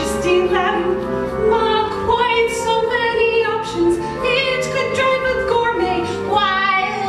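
A musical-theatre song: a voice singing long held notes over instrumental accompaniment.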